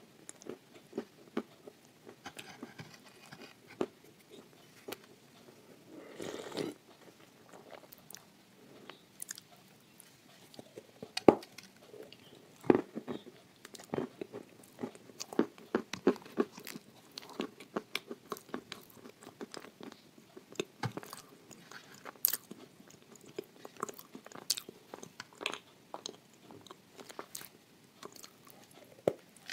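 Close-miked biting and chewing of a dry, crumbly edible-clay chunk spread with chocolate paste: irregular crisp crunches throughout, with a longer grinding crunch about six seconds in and one sharp, loudest crack about eleven seconds in.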